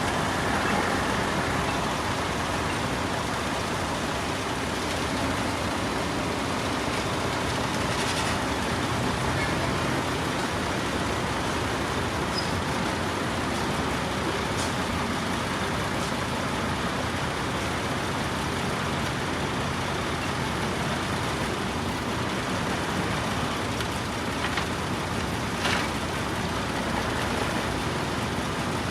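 Heavy diesel earthmoving machinery, dump trucks and bulldozers, running steadily under load, with a few short sharp sounds over the engine noise.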